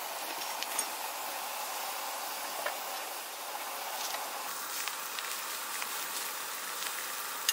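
Meat sizzling on a grill: a steady hiss with faint scattered crackles.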